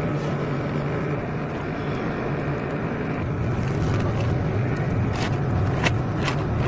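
A steady low engine hum, with a plastic sack and its liner crackling sharply as they are pulled open over the last second or two.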